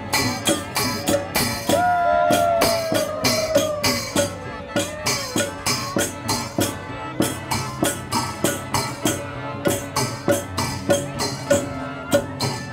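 Traditional Thai procession music: bamboo khaen mouth organs holding a steady droning chord over a regular beat of small cymbals and drum, about two to three strokes a second. A voice sings a long sliding phrase about two seconds in.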